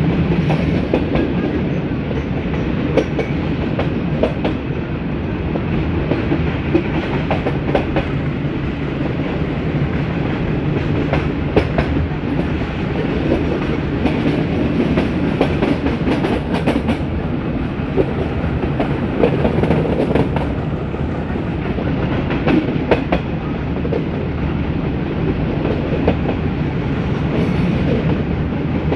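Metre-gauge passenger train running along the track: a steady rumble with irregular clicks of the wheels passing over rail joints.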